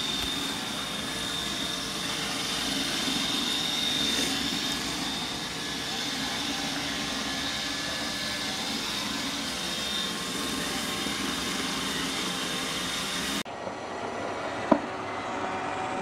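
Roomba robot vacuum running on a hardwood floor while carrying a baby: a steady mechanical hum of motor and brushes with a thin high whine. About thirteen seconds in the sound changes abruptly to another Roomba running more quietly on carpet, with one sharp tap shortly after.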